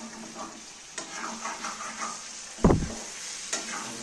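Spatula stirring and scraping chicken curry in a metal pan on a gas stove, the curry sizzling softly as it fries. A single loud low thump comes about two-thirds of the way through.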